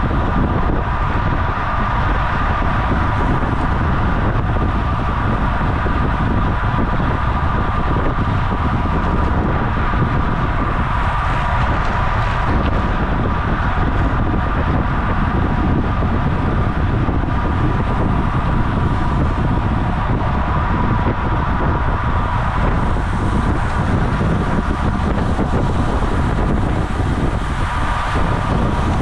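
Wind noise on the microphone of a camera riding with a road bicycle at race speed: steady, loud and rumbling, with a steady whining hum above it.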